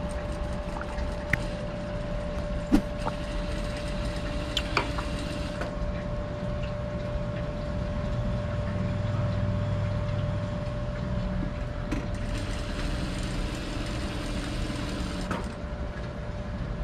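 Industrial single-needle lockstitch sewing machine stitching thin fabric in two runs, each starting and stopping abruptly, with a few sharp clicks and a steady hum underneath. This is a test seam after the feed dog and the upper and lower thread tensions were set light to cure puckering.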